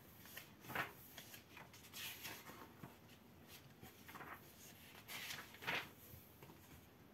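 Pages of a paperback comic book collection being turned by hand: several soft, faint paper rustles and flicks.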